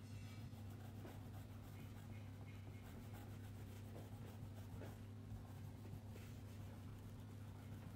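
Faint scratching of a crayon shading back and forth on paper, over a steady low hum.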